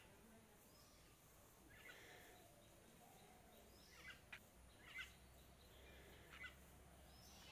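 Faint, short bird calls, four or so spaced a second or two apart, over a very quiet outdoor background.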